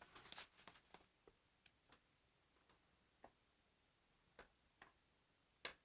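Near silence broken by a few faint, scattered clicks and taps, the clearest one near the end.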